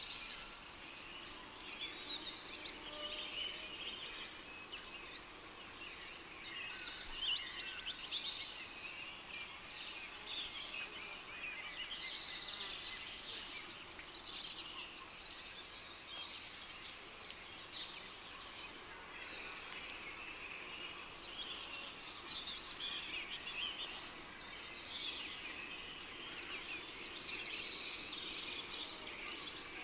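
Rainforest night-insect chorus: a cricket chirping in an even, high-pitched pulse several times a second, over a busy layer of other insect and bird calls. The pulsing stops for about two seconds just past the middle, then resumes.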